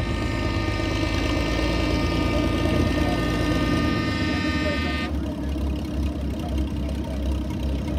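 Antique tractor engine running under load as it pulls a weight sled, a steady low rumble. A high, steady whine of several tones sits over it and cuts off suddenly about five seconds in.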